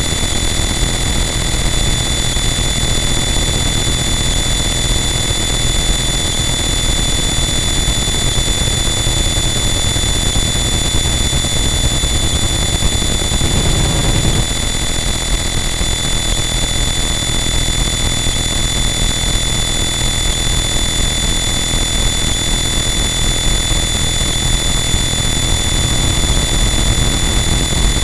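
Harsh noise wall: a dense, unchanging wall of distorted noise with steady high-pitched whining tones on top and a heavy low rumble underneath, swelling briefly in the low end about halfway through.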